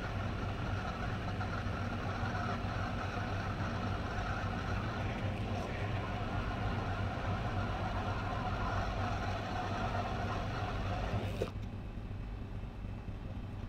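Hot air rework station blowing steadily on a phone's MediaTek CPU to reflow its solder at 300 to 330 °C, a steady hiss of air over a low hum. The airflow cuts off with a click about eleven and a half seconds in, leaving a quieter background noise.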